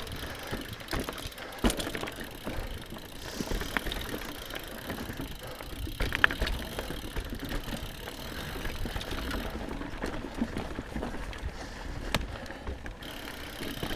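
Mountain bike riding over rough singletrack: tyres rolling over dirt, roots and rocks, with the chain and frame rattling and irregular sharp knocks as the bike hits bumps.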